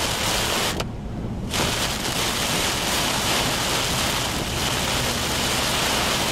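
Steady rushing noise of heavy rain and wind on a storm chase vehicle, with a brief drop in the hiss about a second in.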